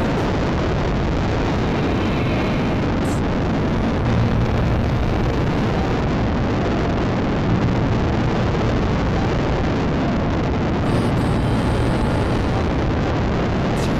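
Steady, loud wind noise buffeting the microphone of a camera mounted on a hang glider's wing in flight, heaviest in a low rumble.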